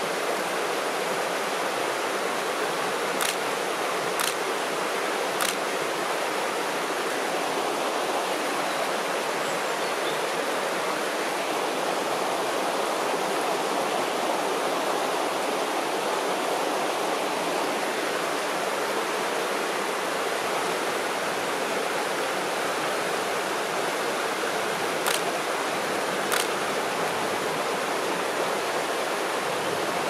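River water rushing steadily, with a few short faint clicks, three a few seconds in and two near the end.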